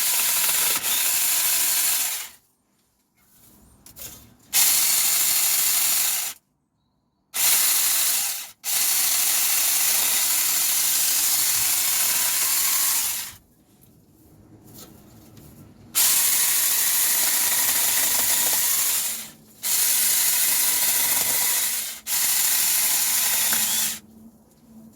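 Saker mini 20 V cordless electric chainsaw running in about seven bursts of one to five seconds, with short pauses between, as it cuts branches off a Christmas tree.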